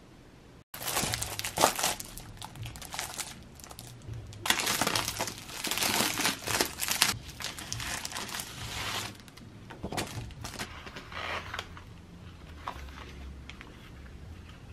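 Cellophane wrapping on a pack of glitter laminate sheets crinkling as it is handled, in two loud stretches. Quieter rustling of the sheets and their backing paper follows.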